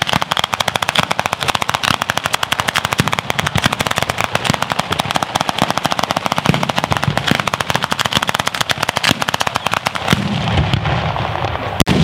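A ground-level firecracker battery (batteria alla bolognese) going off: a rapid, unbroken string of sharp bangs, many per second, like machine-gun fire. About ten seconds in, the string turns deeper and denser.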